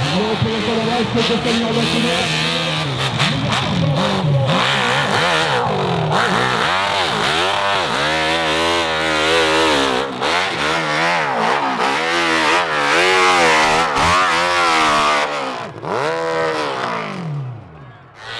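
Off-road motorcycle engine revving hard, its pitch rising and falling over and over in quick surges as the throttle is worked. The sound drops away sharply near the end.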